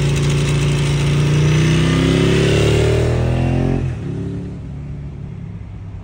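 Ducati 1098R's L-twin engine through a Termignoni 70 mm full racing exhaust, running loud with a deep exhaust note, its revs rising over a couple of seconds. It cuts off sharply about four seconds in, replaced by a quieter steady vehicle rumble.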